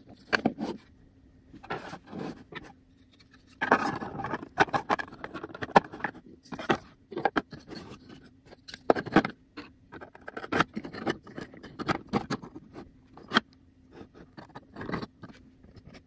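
Red 3D-printed plastic lock wheels being handled and fitted into their plastic housing: irregular clicks, knocks and scraping of plastic on plastic.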